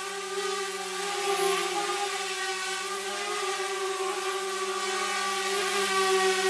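A motor running with a steady droning hum, growing a little louder toward the end.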